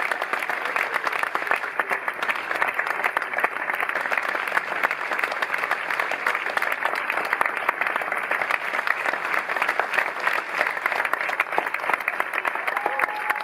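Theatre audience applauding steadily, a dense sustained clapping from many hands.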